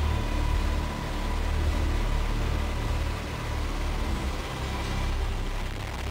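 UH-60 Black Hawk helicopter in flight, heard from inside the cabin: a steady, heavy low rumble of rotor and turbine noise with a rushing hiss over it.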